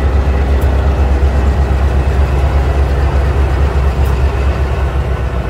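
Diesel locomotives of a freight train passing close by, their engines a loud, steady low drone over the running noise of the train.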